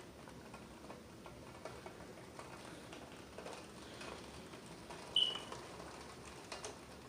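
Heavy rain pouring down, a steady patter with scattered drips and ticks. A single short, high chirp cuts through about five seconds in.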